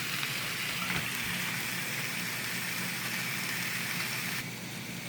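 Chicken breast marinated in beer and wine sizzling on the hot plates of a George Foreman electric grill, a steady hiss that eases slightly near the end.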